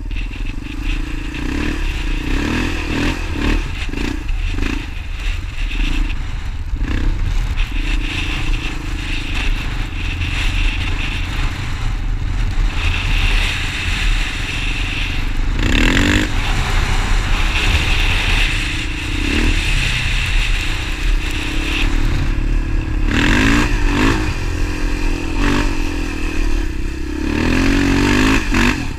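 Motorcycle engine running while riding, its pitch rising several times as the throttle opens, over a steady rushing noise.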